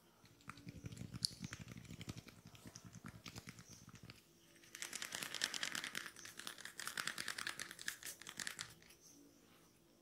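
Fingers rubbing a scalp and hair during a head massage. There are about four seconds of soft, rapid rubbing, then about four seconds of fast, dry crackling as the hair is rubbed between the fingers (hair cracking).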